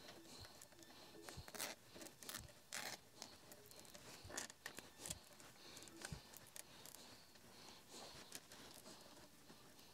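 Faint handling sounds of cable sleeving and fastening straps being worked by hand: short scratchy rips, the strongest in the first three seconds, with scattered small clicks and knocks.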